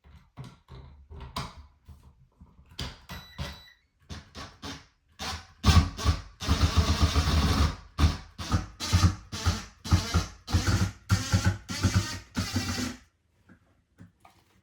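Tool and handling noise: scattered knocks and clicks, then a loud, rapid rattling clatter for several seconds before it drops back to a few knocks near the end.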